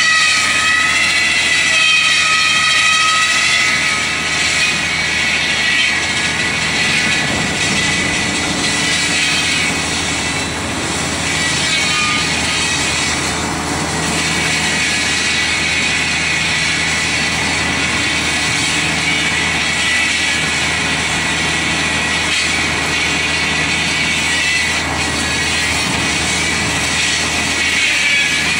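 Bush-cutting machine running steadily while cutting sicklebush: an engine drone under a high whine that wavers slightly, dipping a little in level around the middle.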